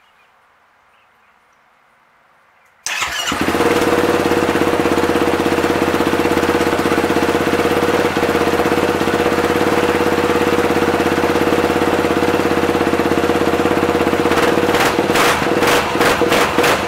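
Yamaha YFZ450R's 450 cc single-cylinder four-stroke engine, breathing through a Lonestar Racing full exhaust, starts up suddenly about three seconds in and runs at a steady, loud idle on a freshly loaded Power Commander V fuel map. Near the end the running turns uneven, with a run of sharp pops.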